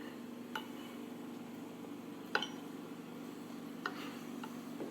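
Four light clinks of a drinking cup being handled, the loudest about halfway through, over a steady low hum.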